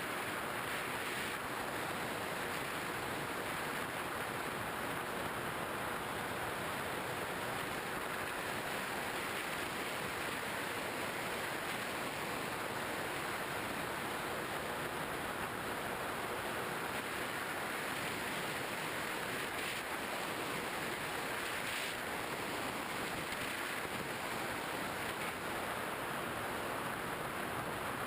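Steady rushing noise of air streaming past a GoPro Hero 2 mounted on a flying Skywalker 1900mm model plane, unchanging throughout.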